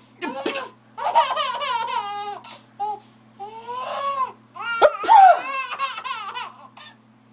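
Baby giggling and laughing in repeated high-pitched bursts at sneezes, with a sudden sharp burst about five seconds in followed by the loudest peal of laughter.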